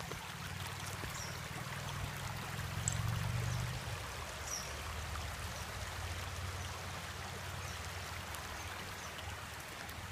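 Small stream running steadily over rocks, with a low rumble underneath that is strongest a few seconds in.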